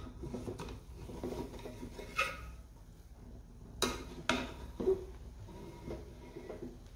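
Metal spoon stirring cooked rice in an aluminium pot: soft scraping through the rice, with several sharp clinks of the spoon against the pot about two, four and five seconds in.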